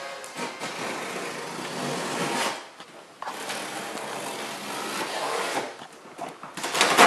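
Packing tape along the top seam of a cardboard box being cut open, a rasping tearing noise in two long strokes, then a short, louder rip near the end.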